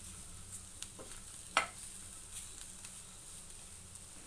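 Wooden spatula stirring and scraping a mashed potato and chana dal mixture in a non-stick frying pan, over a faint sizzle of hot oil. A few light clicks, and one sharp knock of the spatula on the pan about a second and a half in.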